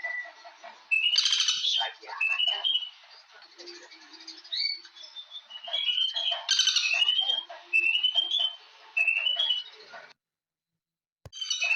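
Birds chirping and calling in short, repeated rising notes, with a brief rapid rattling burst about a second in and again about six and a half seconds in. The sound cuts out completely for about a second near the end and comes back with a click.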